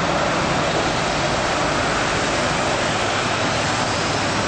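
Steady jet aircraft noise across an airport apron, an even roaring hiss, with a faint high whine slowly rising near the end.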